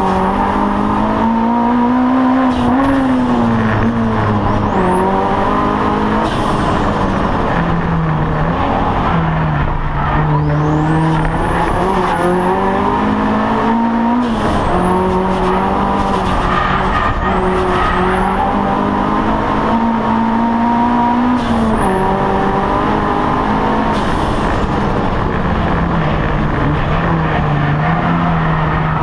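Audi TT race car's engine heard from inside the cabin under racing load, the revs climbing and then dropping sharply at each of several gear changes. A high whine rises and falls along with the revs.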